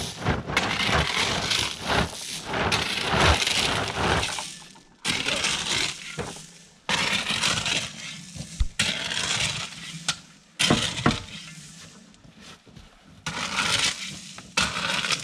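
Crunching, crackling noise in several short stretches, with abrupt cuts between them.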